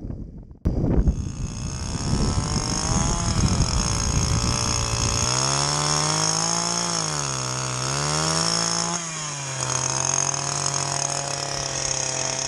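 Petrol-engined ice auger running hard while drilling through lake ice. It starts suddenly within the first second, and its engine pitch sags and recovers once in the middle before holding steady.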